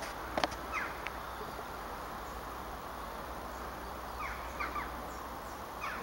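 Steady outdoor background noise with a few faint, short falling chirps, most of them clustered about four seconds in, and a single click about half a second in.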